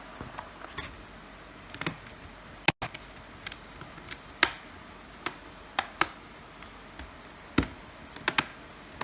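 Plastic bottom case of a Lenovo IdeaPad 120S-11 laptop being pressed shut, its snap clips clicking into place: about ten sharp clicks at irregular intervals, one much louder than the rest.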